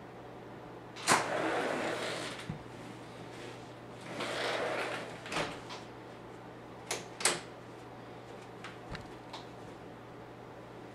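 Sliding glass patio door unlatched with a sharp click and rolled open along its track, then slid shut about three seconds later, with further latch clicks.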